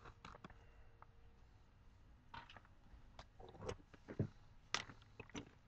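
Faint, scattered crinkles and crunches from a clear plastic popcorn bag being tipped up to the mouth and caramel corn being bitten, with a few louder soft knocks a little past the middle.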